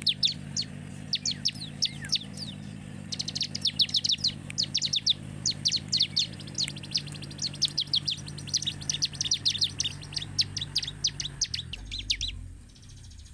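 Bar-winged prinia (ciblek) singing a fast, unbroken run of sharp falling chirps, several a second, with a short break about three seconds in; the song stops about a second before the end.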